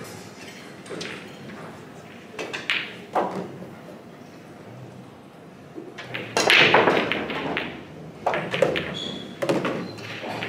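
Break shot in 9-ball pool: about six seconds in, the cue ball smashes into the racked balls. A dense clatter of balls knocking against one another and the cushions follows for over a second, then more separate ball knocks and rail hits come as the balls roll out. A few fainter knocks come before the break.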